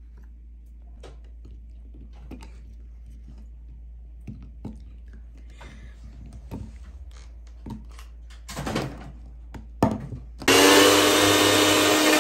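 Light clicks and knocks as pieces of ginger are put into a small blender jar, then about ten seconds in a small electric blender starts and runs steadily at full speed, grinding the ginger into a paste.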